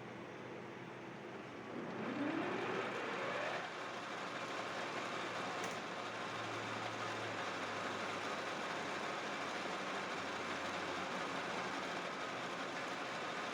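Metal lathe running, machining a pulley: it speeds up about two seconds in, with a rising whine, then runs on steadily.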